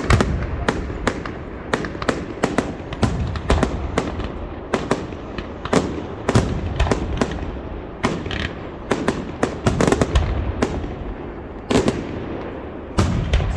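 Fireworks display: a rapid barrage of sharp bangs, several a second, over a continuous low rumble of shells bursting.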